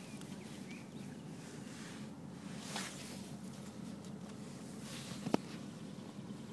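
Faint scuffing and shuffling as a dog moves about on rocks close to the camera, with one sharp click about five seconds in.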